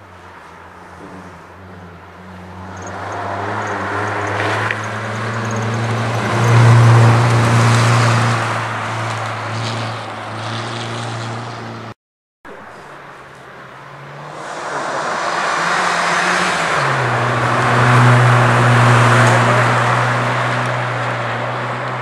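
Rally car engines at full power on a special stage, twice swelling louder as a car approaches and passes, with a brief cut between the two passes. In the second pass the engine note steps up in pitch about three-quarters of the way in.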